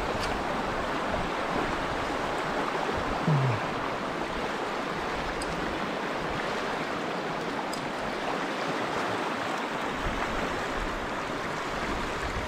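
Steady rushing of a fast, shallow river riffle running over rocks. About three seconds in there is a brief low sound that falls in pitch.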